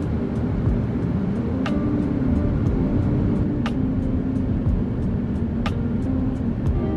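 Steady aircraft engine and cabin noise of an Airbus A350 on the ground, under background music that gives a sharp accent about every two seconds.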